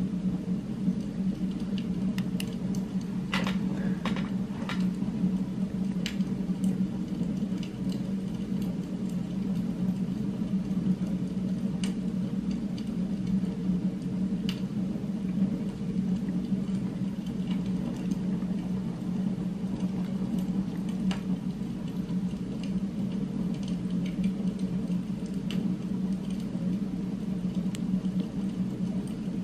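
Steady low droning hum of an added background ambience track, with a few faint clicks of the metal pen parts being handled, most of them about three to five seconds in.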